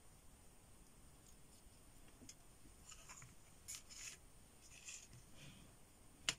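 Faint scratching and rustling as a watercolour paper card is handled and shifted on a cutting mat, with one sharp click near the end.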